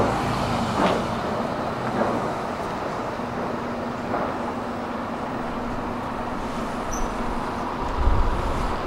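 Steady rumble of a Stockholm metro train running on the tracks, with a few sharp clacks in the first four seconds and a low thump near the end, under general traffic noise.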